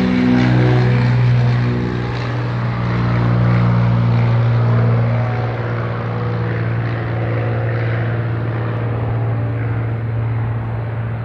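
Cessna 310Q's twin piston engines and propellers at high power in a steady, loud drone. The drone drops slightly in pitch in the first second or two as the aircraft passes, then holds steady while its higher tones fade as it draws away.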